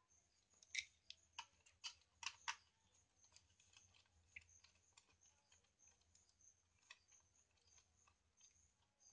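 Small clicks and taps of fingers working a wire into the screw terminals of wall switches. The clicks come in a quick cluster during the first two and a half seconds, then thin out to scattered faint ticks.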